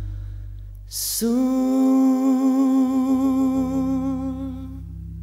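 Background music: one passage fades out, then after a short hiss about a second in, a single long held note, hummed or sung, sounds steadily until near the end.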